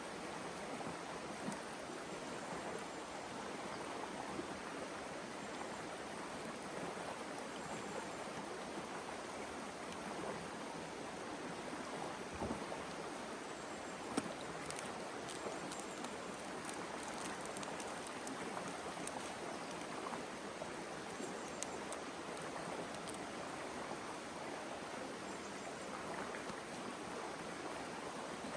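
River water flowing steadily over rocks, an even rushing. A few small faint clicks are heard in the middle.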